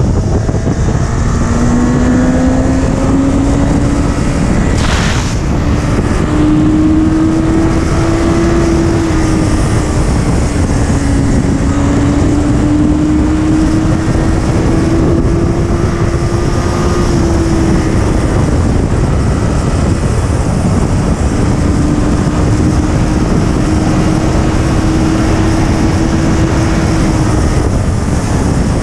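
Motorcycle riding at highway speed: heavy wind rush on the microphone over the steady hum of a Honda sportbike's engine, whose pitch climbs slowly. The engine tone drops away for a couple of seconds past the middle and then comes back, and there is one short knock about five seconds in.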